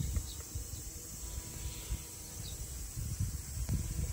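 Outdoor ambience: an uneven low rumble of wind on the microphone, with a few faint, short high chirps.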